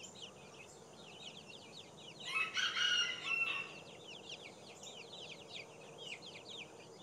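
Silkie chicks peeping: a steady run of short, high, falling peeps. About two seconds in, a louder, lower call rings out for over a second above them.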